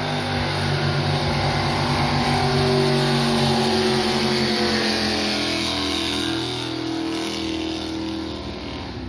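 Racing jet boat engines running at full throttle on a pass. They grow louder over the first few seconds, then fade with the pitch falling slightly as the boats go by.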